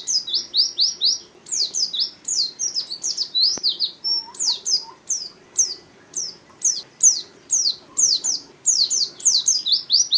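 White-eye (pleci) singing vigorously: a fast, continuous string of high, thin notes, each sliding down in pitch, about three a second.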